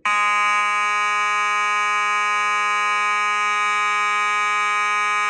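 Simplex 4903-9219 horn strobe's electromechanical horn sounding one loud, unbroken tone that holds steady at a single pitch.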